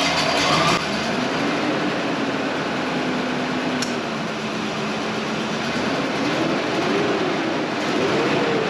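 1996 Ford Ranger's 3.0 L V6 running just after start-up, its pitch wandering up and down and rising twice near the end. It still has a slight misfire at idle, though it runs better after a fuel injector was replaced.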